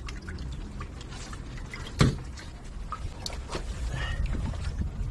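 Shallow pool water splashing and sloshing as hands search it for fish, with scattered small clicks and one sharp knock about two seconds in, over a steady low rumble.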